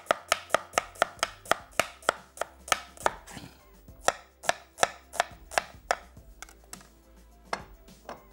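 Chef's knife slicing a red onion on a wooden cutting board: quick, even knocks of the blade on the board, about three to four a second. After about six seconds they thin out to a few single knocks.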